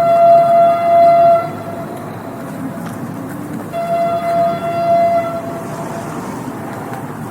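Train horn sounding two long, steady blasts, the first at the start and the second about halfway through, over the rumble of a moving train.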